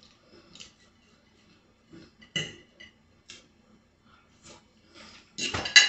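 A metal fork clicking and scraping a few times on a plate as salad is picked up, then eating noises, with a louder one near the end.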